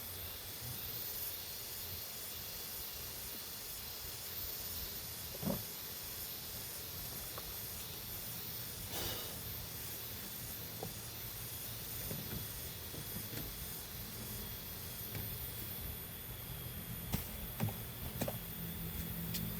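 Steady hiss of a crop sprayer's nozzle misting spray, with a low hum underneath and a few faint knocks.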